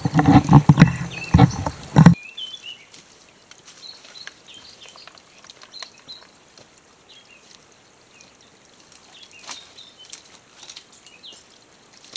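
A loud, close noise with a few knocks for about the first two seconds that stops abruptly. Then quiet woodland with small birds chirping and a few faint clicks as a hand-pump water filter is worked into a bottle.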